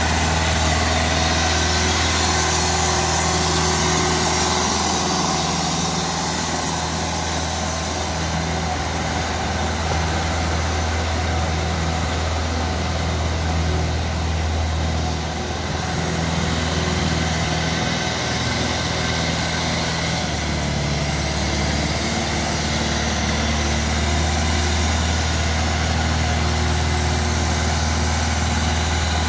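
Compact tractor's engine running steadily at low speed as it drives an ice-resurfacing unit across the rink, a continuous low hum with a slight change in pitch about two-thirds of the way through.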